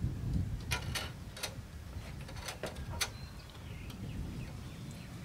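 Light clicks and taps of a steel bandsaw blade being worked onto the wheels and past the guides of a Ryobi 9-inch benchtop bandsaw, about half a dozen sharp ticks in the first three seconds over a low handling rumble.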